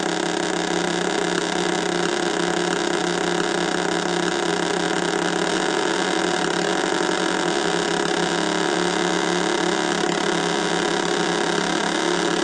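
Homemade drone synthesizer built from three 555-timer oscillators, sounding a steady chord of several held tones. Three more 555 timers used as low frequency oscillators modulate them, so some of the pitches bend up and down, while the knobs are turned.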